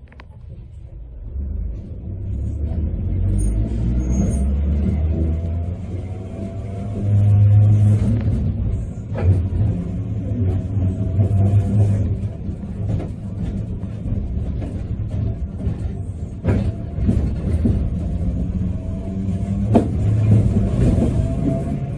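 Sapporo streetcar pulling away from a stop and running along the track, heard from inside the car. A low rumble of the motors and wheels on the rails builds over the first few seconds, with a few sharp clicks along the way.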